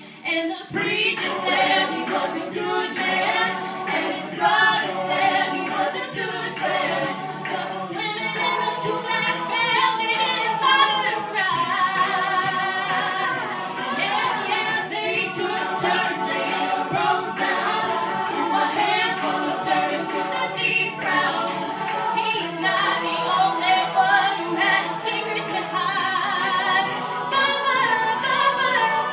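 Mixed-voice a cappella group singing, a woman's lead voice over the group's harmonies, with a steady beat running underneath.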